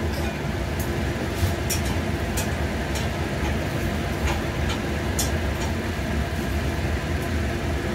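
A steady low mechanical rumble, with scattered light clicks of a utensil stirring food in a metal frying pan.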